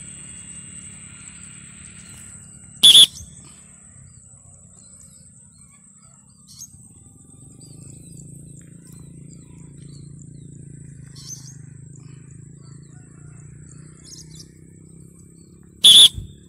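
Rainbow lorikeet giving short, loud, harsh screeches: one about three seconds in and another near the end. Between them only a faint steady high whine and a low rumble.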